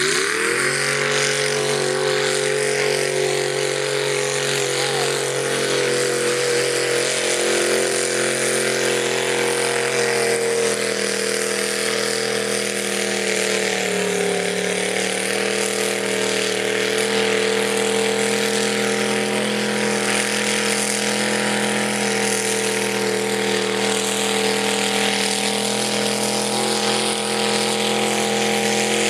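Mud-racing 2001 Dodge Dakota pickup's engine revving up hard and held at high revs, wide open, as it ploughs through a mud pit. Its pitch dips briefly about halfway through, then picks back up and stays steady.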